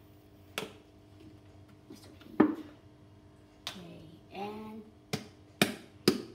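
Plastic sauce bottles and their caps being handled on a kitchen counter: a few separate sharp clicks and taps, the loudest about two and a half seconds in, over a faint steady hum. A brief hummed voice sound comes a little past the middle.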